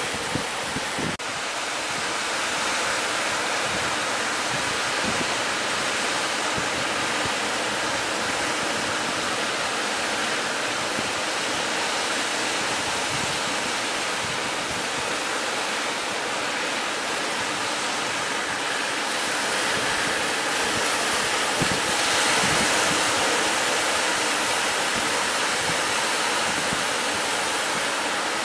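Steady rush of sea surf, with wind gusting on the microphone.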